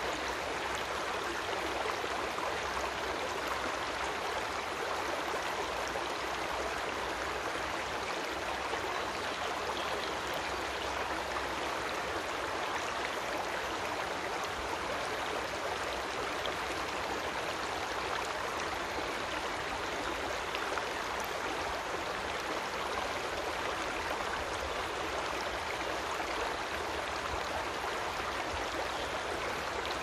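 Creek water flowing with a steady, even rush.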